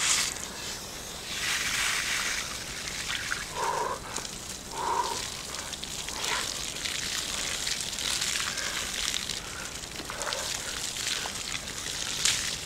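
Water from a garden hose splashing and pattering over a man's head and face as he cools off under it, with a couple of short vocal sounds from him around four and five seconds in.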